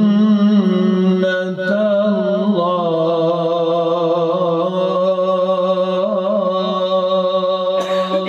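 A man reciting the Quran in melodic tajweed style, drawing out a single vowel into one long held note with slight wavers in pitch, breaking off near the end.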